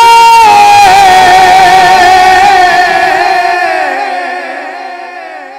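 A male naat reciter sings one long held note. It steps down in pitch about half a second in, wavers gently, and then fades away over the last couple of seconds.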